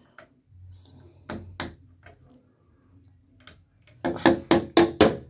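Pliers tapping on a metal door hinge: two sharp taps about a second in, then a quick run of about six taps near the end.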